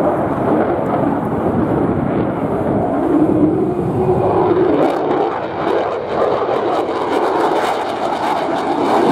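Lockheed Martin F-35 Lightning II fighter jet's single Pratt & Whitney F135 engine, heard as loud, steady jet noise during a display pass. A crackle runs through the second half.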